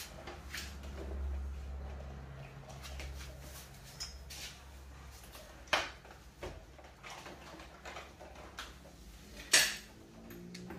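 Sharp clicks and knocks from handling a PVC door and its plastic dog flap, a few in all, the loudest about nine and a half seconds in and another near six seconds, over a low hum that is strongest in the first few seconds.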